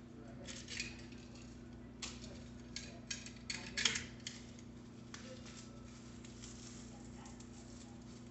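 Bicycle seatpost and its packaging being handled: a scatter of short rustles and light clicks, busiest between about two and four seconds in, over a steady low hum.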